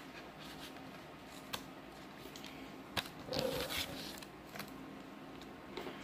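Cardboard box and clear plastic tray of a RAM kit being handled and opened: light scattered clicks, a sharp click about halfway through, then a short plastic scrape and rustle.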